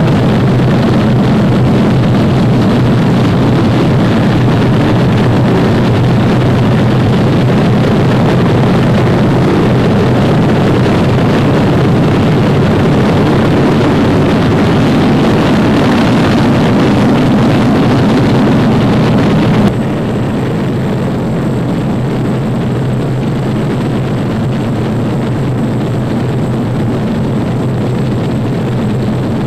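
Multi-engine propeller bomber formation droning in flight: a loud, steady, unbroken engine drone that drops suddenly in level about two-thirds of the way through, then carries on evenly.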